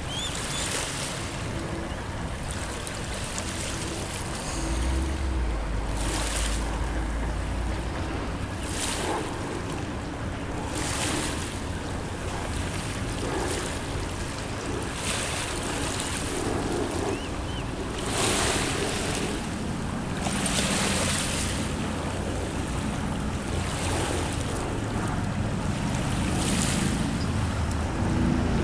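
Small waves lapping and washing on the shore in repeated surges every couple of seconds, over steady wind noise on the microphone. A low, steady motor hum runs underneath in parts.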